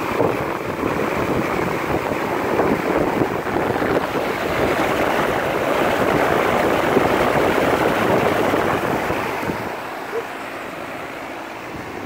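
Amana straight-cool central air conditioner's outdoor condensing unit running: a steady rush of air from its condenser fan, with wind buffeting the microphone, easing off about ten seconds in.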